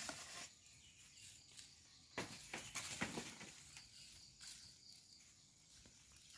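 Quiet outdoor ambience with a few soft rustles and scuffs about two to three seconds in, from a volleyball net being rolled up onto its pole, and a faint high steady tone near the middle.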